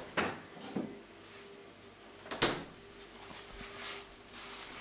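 Refrigerator door being opened and shut: a couple of soft knocks just after the start and a sharper thump about two and a half seconds in, with a faint steady hum afterwards.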